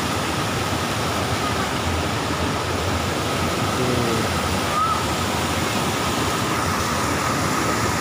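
Steady roar of a waterfall and white water rushing over boulders in the stream below it.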